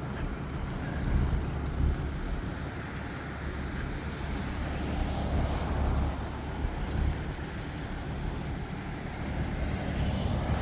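A motor vehicle engine idling with a steady low hum, with road traffic noise around it.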